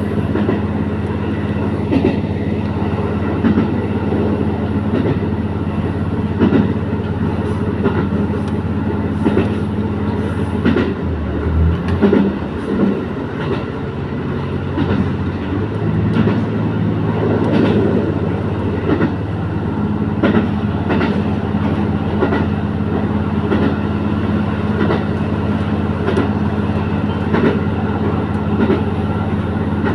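Diesel railcar running on the rail line: a steady engine drone with the wheels clicking over rail joints. About 11 seconds in the engine note drops and shifts, then settles back to a steady drone a few seconds later.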